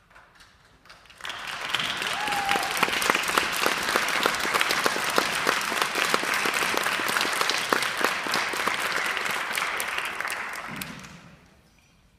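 Audience applauding: a few scattered claps, then full applause from about a second in, dying away near the end.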